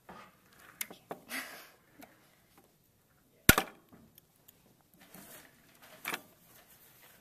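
Needle-nose pliers prying a small metal retaining clip off the joystick shaft of a remote-control car's controller: light clicks and scrapes of metal on plastic, then one sharp snap about three and a half seconds in as the clip springs off, and a smaller click near the end.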